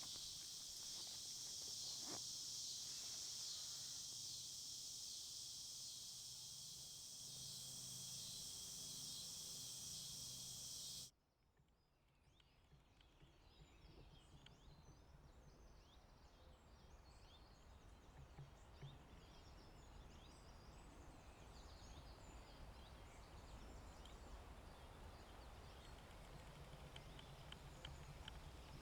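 A steady chorus of insects cuts off abruptly about eleven seconds in. After it come faint, scattered bird chirps over a low rumble that slowly grows louder.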